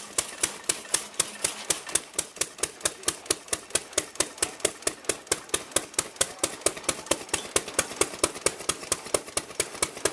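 Antique engine-driven drag saw running, its engine and reciprocating crosscut blade making a sharp, even clatter of about four to five beats a second as the blade saws through a large log.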